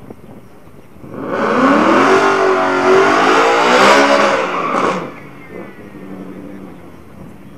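Drag-racing car accelerating hard at full throttle down the quarter-mile strip, the engine note rising, loud for about four seconds, then dropping away suddenly about five seconds in.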